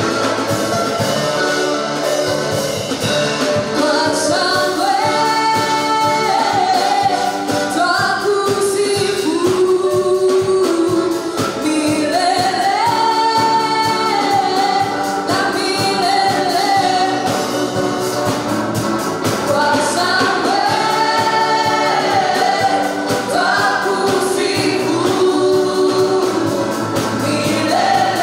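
Gospel praise team of men and women singing together into microphones over a band with drums, the voices holding long notes at the end of each phrase.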